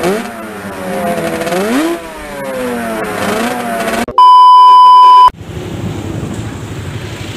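A motorcycle engine revving up and down, its pitch rising and falling several times; then a loud steady test-tone beep about four seconds in, lasting about a second; then the running sound of a motorcycle being ridden, with wind on the microphone.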